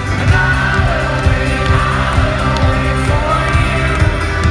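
A folk-rock band playing live with singing, heard from the stands of an arena through a phone's microphone, with a steady, full bass underneath.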